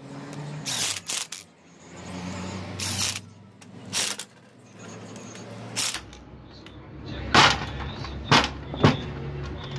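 Electric power tool with a socket on its chuck, run in a series of short bursts to drive the bolts of a truck brake pedal valve body together during reassembly. A steady low hum joins from about six seconds in.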